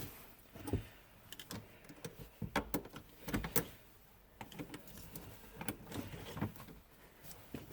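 Scattered small metallic clicks and light knocks, with a few short runs of quick ratchet-wrench clicking, as the nut on a car battery's terminal clamp is worked tight.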